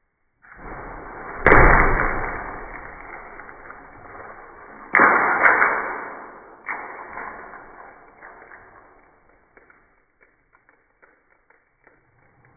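Arrows shot from a bow at a steel padlock: two sharp cracks of release and impact about three and a half seconds apart, each fading away slowly, with a smaller knock about a second after the second.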